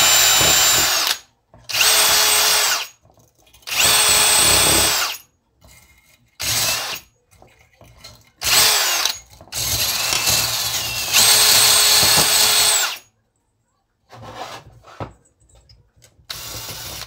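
Cordless drill spinning a wire brush against a chainsaw's crankcase, scrubbing it clean. It runs in short bursts of about a second, with one longer run of about three seconds, and the motor's whine rises and falls as the trigger is pulled and let go.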